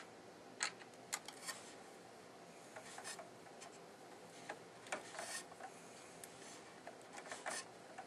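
Faint, scattered clicks and scrapes of a hand screwdriver working the mounting screws loose on a Corsair H70 liquid cooler's pump block over the CPU.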